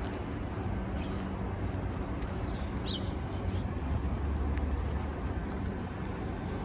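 Downtown street ambience: a steady hum of traffic with a couple of short, high bird chirps about two and three seconds in.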